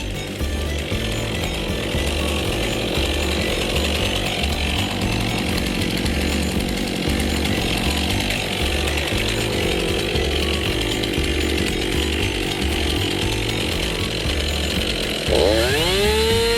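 Chainsaw running steadily while bucking a log into rounds, its engine revving sharply up and back down near the end.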